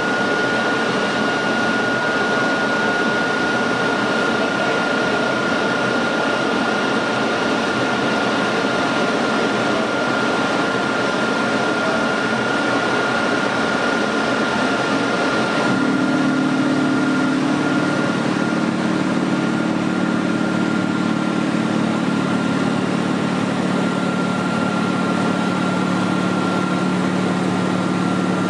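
Standing locomotive running: a steady rushing hum with a constant high whine. About halfway through, the low, even drone of a diesel locomotive's engine idling comes in strongly.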